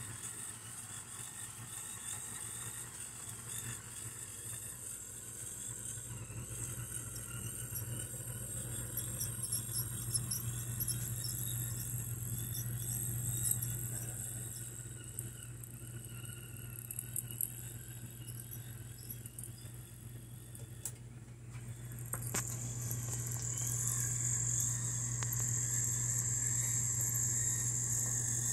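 S scale brass Consolidation model steam locomotive, built from a 1978 S Scale Locomotive & Supply kit, running slowly along the track: a steady hum of its electric motor and gearing with a high hiss and faint ticks from the wheels on the rails, getting louder about three-quarters of the way through.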